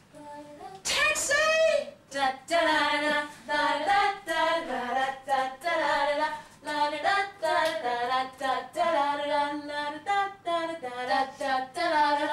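A woman's voice singing unaccompanied in quick syllables, starting about a second in.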